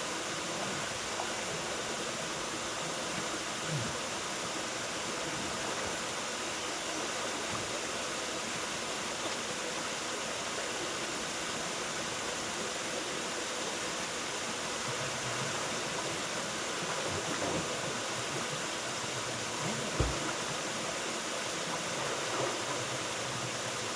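Waterfall water rushing in a steady, even wash of noise. A few faint low knocks, the sharpest a brief one near the end.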